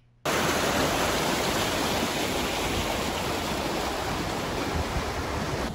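Steady rush of water pouring down a river weir's fish pass channel, cutting in suddenly a moment in.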